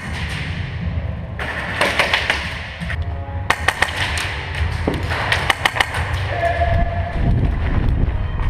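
Bursts of airsoft gunfire: quick trains of sharp clicks and snaps in three clusters, over a steady low rumble.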